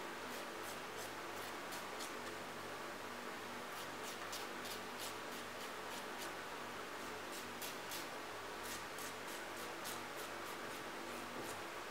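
Nail file rasping across a baby monkey's fingernails in short, light strokes, a few a second in irregular runs, over a steady low room hum.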